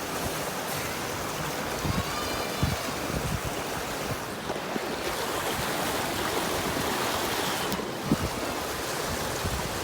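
Steady rush of fast-flowing creek water, with a few faint knocks.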